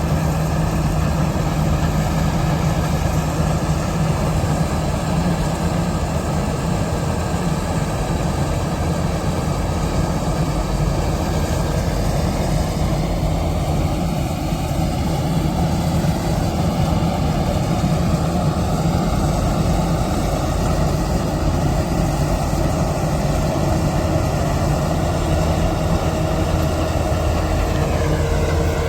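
Kartar combine harvester running steadily while cutting wheat: a heavy, constant engine drone under a dense mechanical noise, with a slight dip in pitch near the end.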